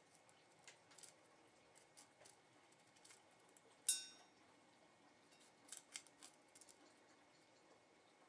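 Young blue tit pecking at seed in a stainless steel bowl: faint scattered clicks of beak on seed and metal. One sharp ringing ping from the steel bowl about four seconds in.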